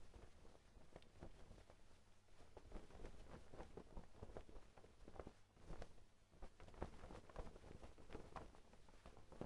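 Laundry hanging on a clothesline rustling and flapping in the wind: faint, irregular soft flaps over a low wind rumble.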